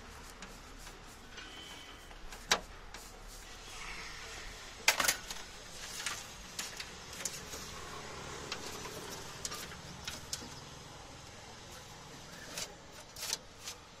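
Scattered clicks and knocks of hands and tools working on the bare metal of a car door's inner panel while wiring in a central-lock actuator, the loudest a short cluster of knocks about five seconds in.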